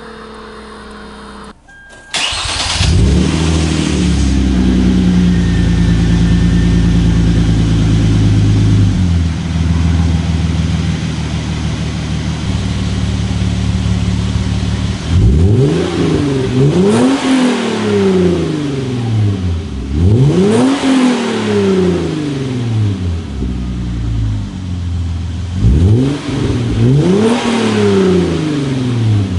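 Hyundai Genesis Coupe 3.8 V6 breathing through a CNT Racing V3 cat-back exhaust with quad tips: the engine starts about two seconds in, holds a raised idle for several seconds, then settles to a lower idle. In the second half it is revved in a series of quick throttle blips, each a sharp rise and fall in pitch, some in quick pairs.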